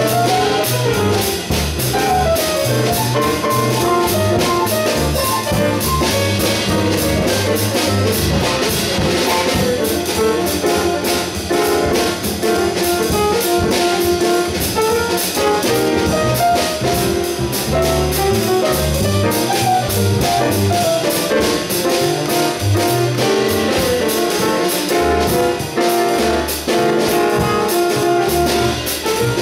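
A jazz piano trio of grand piano, bass and drum kit plays a bebop blues. Piano lines run over a moving bass line, with the drummer's cymbals going steadily throughout.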